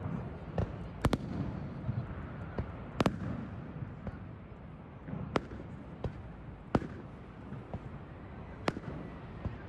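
Aerial fireworks going off: sharp bangs every second or two, the loudest about 1 s and 3 s in, with smaller crackling pops between, over a steady low rumble.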